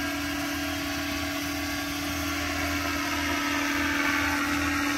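Radio-controlled scale helicopter, a Roban Bell 429, flying close by with the steady whine of its motor and rotor blades. The pitch holds steady and the sound grows a little louder near the end.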